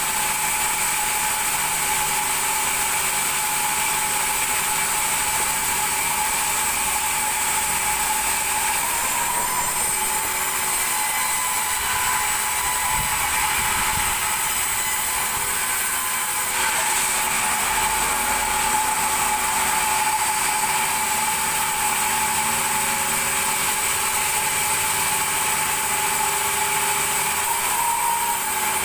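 Large vertical band saw of a sawmill ripping lengthwise through a big log: a steady whine with hiss from the blade running through the wood.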